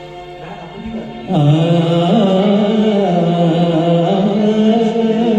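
Opening of a ghazal song: quieter accompaniment, then about a second in a strong, held melody line with a slight waver comes in and carries on.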